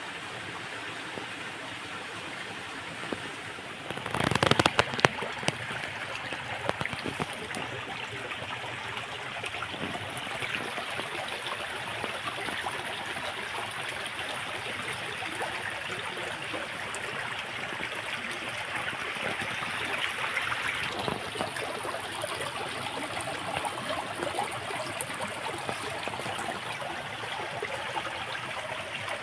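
Shallow stream running over stones, a steady flow of water, with a brief loud crackling burst about four seconds in.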